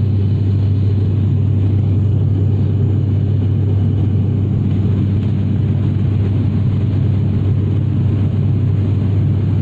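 Steady low drone of a propeller airliner's engines and propellers: a strong constant hum under a dense rushing noise, unchanging throughout.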